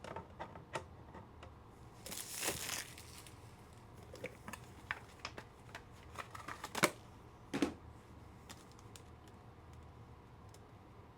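Trading cards and their packaging handled on a table: a crinkling rustle about two seconds in, then scattered light clicks and taps, the sharpest two near the seven-second mark.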